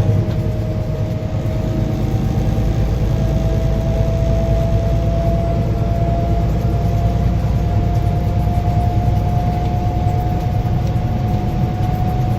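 A truck's engine and road noise heard from inside the cab while driving: a steady low rumble with a thin whine that slowly rises in pitch.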